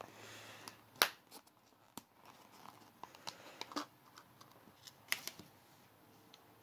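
A small clear plastic cup being handled and its snap-on lid pried off, giving scattered sharp plastic clicks and taps with a little rustling. The sharpest click comes about a second in, and a quick group of clicks comes near the end as the lid comes free.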